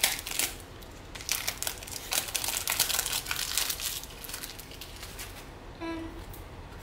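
Foil wrapper of a Panini football card pack crinkling and tearing as it is opened by hand. The crackling is busiest over the first few seconds and then thins out.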